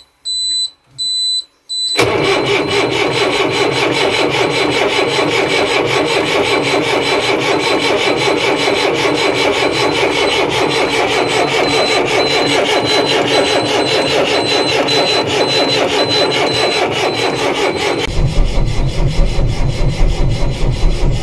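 An Ashok Leyland tourist bus's low air-pressure warning beeper sounds in short beeps. About two seconds in, the bus's turbocharged inline-six diesel starts abruptly, a cold start after about five years standing, and runs steadily. The beeper keeps going faintly underneath, a sign that the air tanks have not yet built pressure. Near the end the exhaust is heard close at the tailpipe, louder and deeper.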